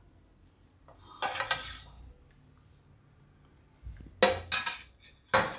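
Steel spoon scraping against a stainless steel plate about a second in, then several sharp metal clinks of spoon and steel dish near the end.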